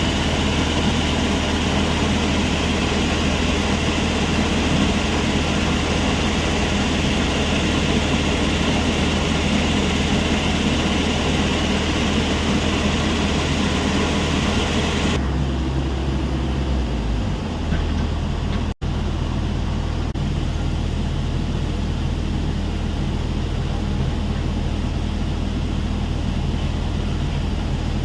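Heavy diesel machinery at a stone crusher plant running steadily, a continuous low engine hum under a broad rushing noise. About fifteen seconds in the sound changes abruptly, losing much of its hiss, and it drops out for an instant a few seconds later.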